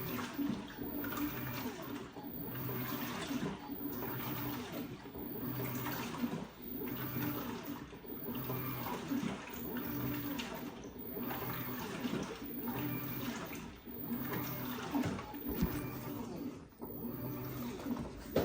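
LG WT16WV6 top-loading washing machine agitating a load of towels: water sloshing and churning while the motor hum swells and fades in a regular rhythm as the wash action reverses.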